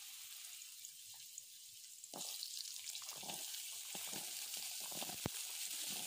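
Cubes of raw papaya sizzling in hot oil in a kadai. The sizzle grows louder about two seconds in as more pieces are tipped in from a bowl, with soft knocks of pieces landing and one sharp click near the end.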